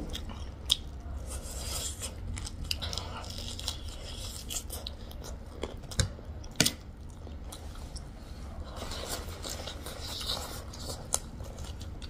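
Eating sounds: chewing pork ribs and noodles, with sharp clicks of a fork and chopsticks against plates. The two loudest clicks come close together a little past halfway.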